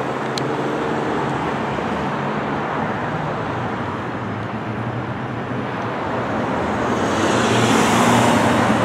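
Street traffic with a motor vehicle's engine running steadily; a passing vehicle grows louder toward the end.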